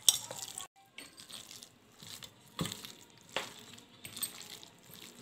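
Thick gram-flour and jackfruit pakora batter being mixed in a steel bowl: faint stirring and scraping with a few sharp clinks against the metal bowl, the clearest just after the start and about two and a half and three and a half seconds in.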